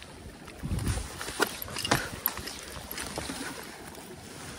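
Wind rumbling on the microphone, with a few sharp clicks and taps between one and two and a half seconds in.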